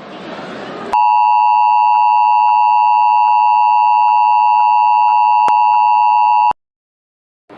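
Emergency Alert System attention signal: a loud, steady two-tone alarm that starts about a second in and cuts off abruptly after about five and a half seconds. It signals that an emergency message, here a severe thunderstorm warning, is about to be read.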